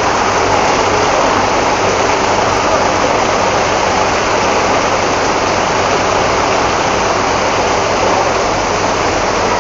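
Heavy rain pouring down: a steady, loud, even hiss.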